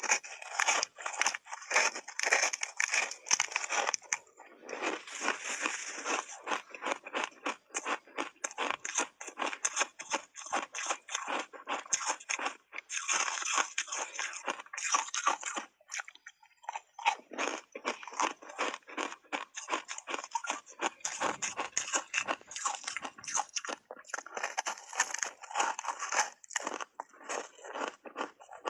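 Frozen ice bars coated in matcha powder being bitten and chewed close to the microphone: dense, irregular crunching and cracking of ice, with two brief lulls, about four seconds in and again about sixteen seconds in.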